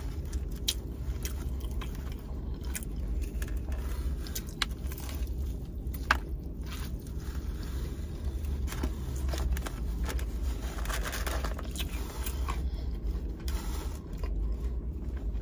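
Close-miked eating: chewing and biting with scattered crunches, sharp mouth clicks and scraping food sounds. A steady low rumble runs underneath.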